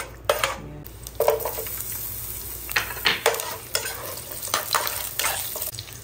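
Garlic and ginger sizzling in cooking oil in a nonstick pan, with a metal spoon stirring and scraping against the pan in a string of short, uneven scrapes and knocks.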